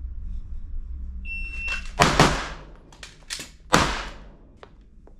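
Shot timer's start beep, then pistol shots: two quick shots about a second after the beep and a third about a second and a half later, with lighter clicks between.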